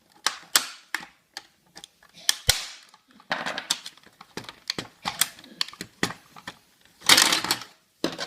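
Sharp plastic clicks and snaps of a Coinco coin mechanism being unclipped and its parts handled to get at the coin gates, with a longer rattle a little after seven seconds in.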